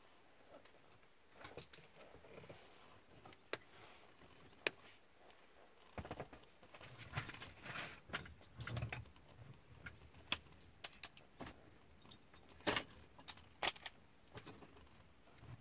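Faint scattered clicks, rattles and rustling of plastic parts and wiring being handled at a truck's fuse and relay box, busiest around the middle, with a couple of sharper clicks near the end.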